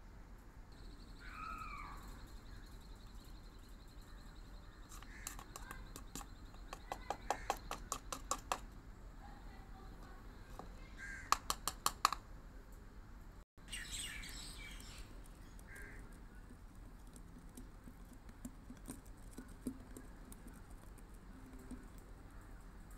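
Two runs of light, quick taps, about four a second, from a metal spoon knocking against a plastic funnel as powder is tipped through it. Birds call now and then in the background.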